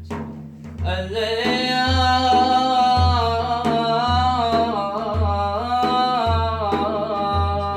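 Sufi devotional madih music: a long, sustained melodic line that bends gently in pitch, over a low drum beat about once a second.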